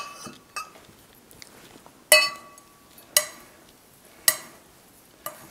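Metal spoon stirring a dry oat-and-seed mix in a glass bowl, striking the bowl's side: four sharp, ringing clinks about a second apart, with a smaller one near the start.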